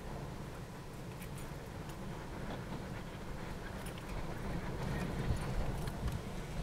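Distant freight train running along the line: a low, steady rumble with scattered light clicks, growing a little louder near the end.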